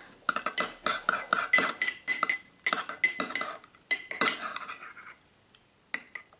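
A utensil clinking and scraping against a bowl in quick, irregular strokes while slime is stirred. The strokes stop about five seconds in, with a few more near the end.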